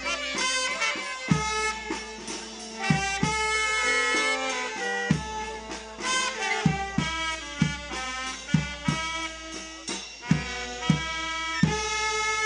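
A small brass band plays a melody, with saxophones and a trumpet leading and a bass drum beating under them.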